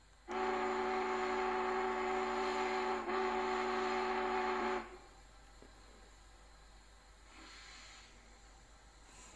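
Sound module of an LGB North Pole Express model steam locomotive playing its steam whistle: a chord of several tones held for about four and a half seconds, with a brief break about three seconds in. A softer hiss follows about seven seconds in.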